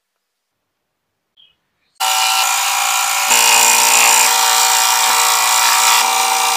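Scroll saw running, its fine blade cutting a 5 mm wooden blank along a glued-on paper pattern. A steady buzz starts about two seconds in and gets a little louder a second later.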